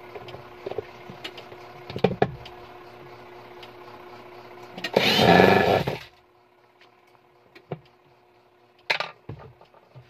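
Washing machine's wash motor and gear case running with a hum and irregular clicks and knocks, the noise that shows a damaged gear case needing replacement. About five seconds in a loud rasping burst lasts about a second; after it the running goes much quieter, with a few faint clicks.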